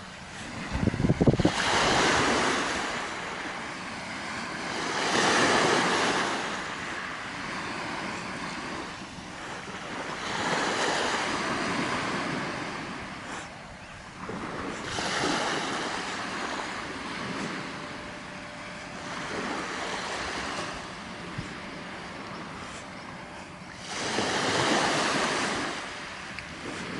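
Small waves breaking and washing up the shore, swelling and fading every few seconds. A brief gust of wind hits the microphone about a second in.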